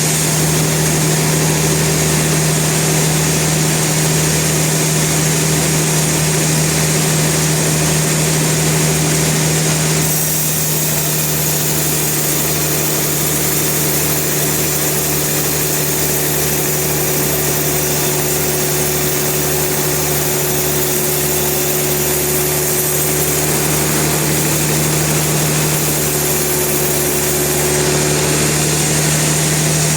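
Sawmill machinery running: a steady engine hum. The upper part of the sound changes about ten seconds in, and again shortly before the end.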